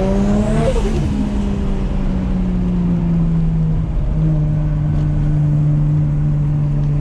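Nissan Skyline R33's turbocharged RB25DET straight-six, built to about 550 hp, climbing in revs, then dropping as the throttle is lifted about a second in. It then runs at a steady cruise with a slight downward drift in pitch.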